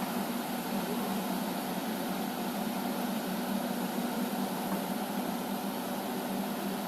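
Bucket-chain dredger running steadily while it scoops silt from the pond bottom: a continuous mechanical drone with a low hum, with no separate knocks standing out.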